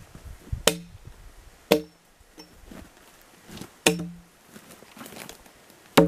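Axe chopping into a log: four sharp blows at uneven spacing, each with a short ringing tone.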